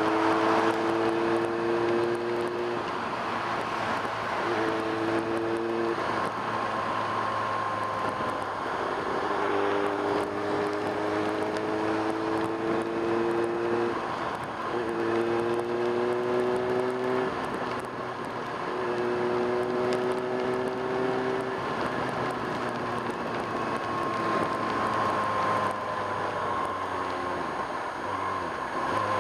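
Kawasaki ZX-6R inline-four engine under way, its note climbing slowly and breaking off several times, over steady wind and road noise.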